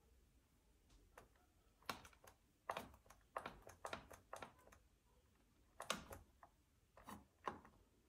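Sharp clicks and taps of a high-heeled patent pump pressing and stepping on a small plastic bottle and tubes on a hard plank floor, in two uneven runs of about a dozen clicks.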